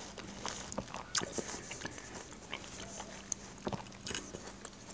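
Close-up chewing of crisp Caesar salad: irregular small crunches and wet mouth clicks.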